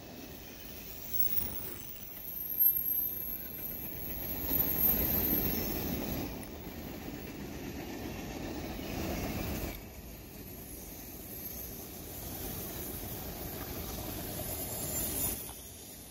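Freight cars of a long mixed manifest train rolling past: a steady rumble of steel wheels on the rails, with one loud knock about two and a half seconds in and the sound swelling and easing as boxcars and then autorack cars go by.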